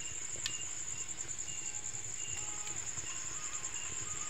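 Crickets trilling in a steady high-pitched chorus, with shorter chirps from other insects repeating over it and a single sharp click about half a second in.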